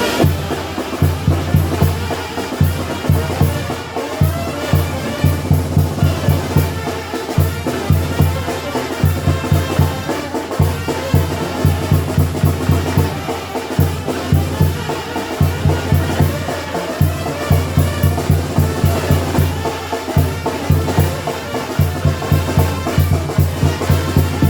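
Sinaloan tambora band playing: brass instruments over a steady, driving bass and drum beat.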